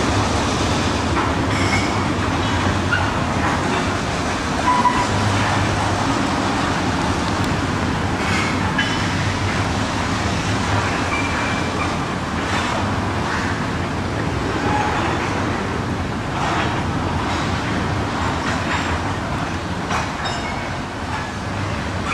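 Vermont Railway diesel locomotive No. 201 moving slowly with a string of tank cars: a steady engine hum under rolling wheel noise, with scattered clicks of wheels over the rail.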